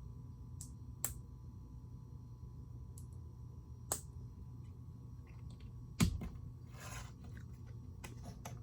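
Lego bricks being handled and pressed together: a few separate sharp plastic clicks, the loudest about six seconds in, followed by a brief rustle.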